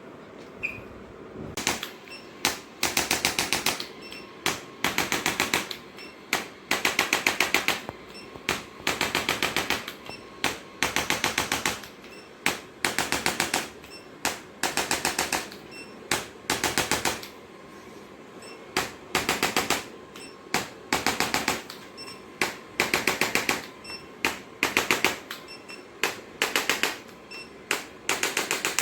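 A handheld percussive treatment device tapping very rapidly, many strikes a second, in short bursts of half a second to a second and a half with brief pauses between them, over and over.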